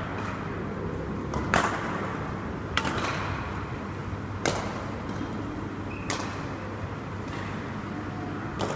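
Badminton rackets striking a shuttlecock during a doubles rally: about five sharp hits, roughly one every one and a half seconds, with a few fainter ones between.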